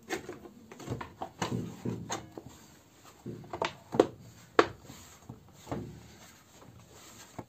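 Housing cover of an Einhell scroll saw being handled and pressed into place over the saw's arm: a run of irregular clicks and knocks, the sharpest about four seconds in and again half a second later.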